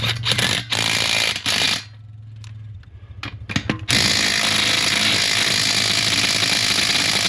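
Impact wrench hammering on a seized wheel nut: a burst for about the first two seconds, a pause with a few clicks, then a steady run of about four seconds, and the nut does not come loose.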